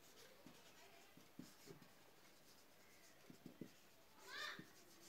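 Near silence: quiet room tone with a few faint scattered taps, and a short faint rising squeak a little past four seconds in.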